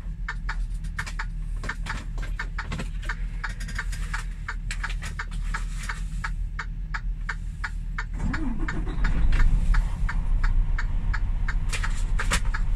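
Freightliner Cascadia truck's diesel engine idling, heard from inside the cab, as a steady low hum under a rapid run of sharp clicks, several a second. About eight seconds in, a short rising and falling sound is heard and everything gets a little louder.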